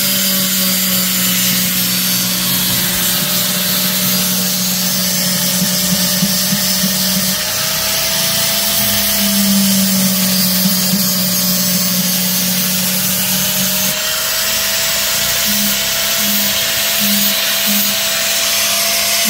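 Electric angle grinder running steadily, its abrasive disc grinding down a chopper's wooden handle. Near the end the sound pulses in short, even strokes.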